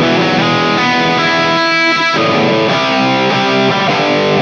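Gibson ES-335 semi-hollow electric guitar with humbucker pickups, played through a MESA/Boogie Mark VII combo amp. It plays a continuous riff of picked chords and ringing held notes.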